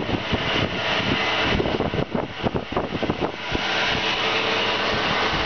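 Belt-driven two-cylinder reciprocating air compressor running: a steady mechanical drone, with a run of irregular knocks in the middle.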